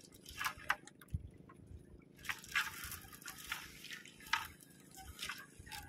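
A wet fishing net being hauled over the side of a boat: irregular drips and small splashes of water running off the mesh.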